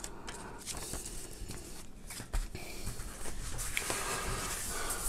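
Hands handling a gaming mouse's packaging: the rustling of a paper manual and of the mouse's fabric protective pouch, with small clicks and a soft knock about halfway through. The handling gets louder near the end.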